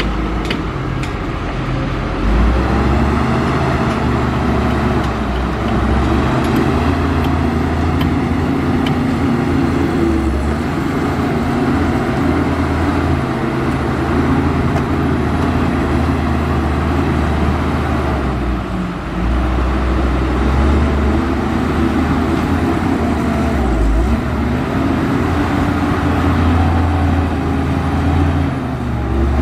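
Heavy diesel engine of earthmoving machinery running steadily, its pitch rising and dipping several times as the load changes. A few sharp clicks come in the first several seconds.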